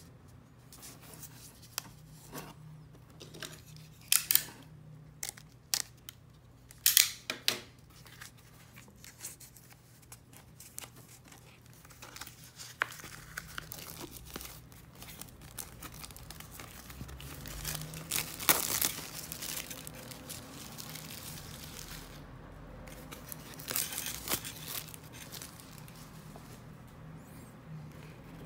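Paper and packaging being handled: irregular rustling and sharp clicks from a 2018 calendar mounted on a clipboard, with louder rustles about 4, 7, 18 and 24 seconds in.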